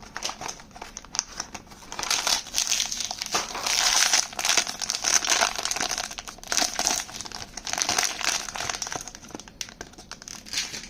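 Blind-box packaging crinkling and rustling as it is opened by hand, a dense run of small crackles, busiest in the middle stretch.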